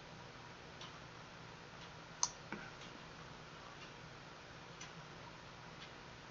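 Faint ticking, evenly spaced at about one a second, over quiet room tone, with one sharper click about two seconds in.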